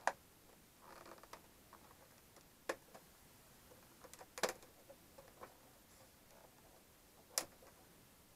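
Plastic case clips of a Samsung SyncMaster 943BWT LCD monitor snapping loose as the case is pried apart by hand: four sharp clicks a second or more apart, with fainter ticks and handling rustle between.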